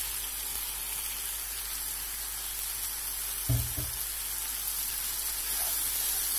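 Tomato, pepper, onion and freshly added chopped garlic chives sizzling steadily in a frying pan, with a short low thump about halfway through and the vegetables stirred with a wooden spatula near the end.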